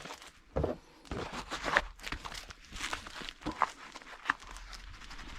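Handling noises from a multi-tool sheath being worked in the hands: an irregular run of short rustles, clicks and light knocks, with a sharper click at about two seconds and another about four seconds in.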